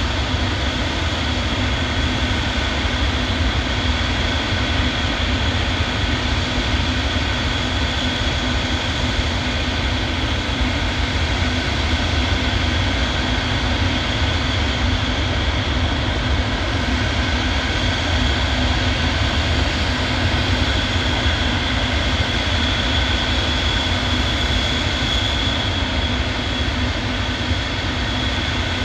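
Antonov cargo jet's turbofan engines running steadily: a constant high whine over a heavy low rumble, with no change in pitch or level.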